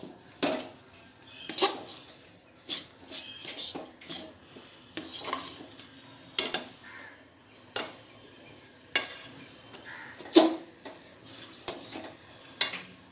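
Metal spatula scraping and knocking against a metal kadai as sesame seeds are stirred through hot sugar syrup, in irregular strokes about once or twice a second, the loudest knock about ten seconds in. The mixture is being stirred quickly so it does not set hard and stick to the pan.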